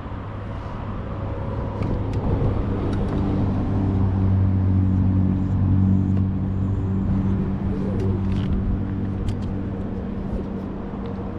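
A motor engine's steady low hum that grows louder toward the middle and then fades, as it passes by.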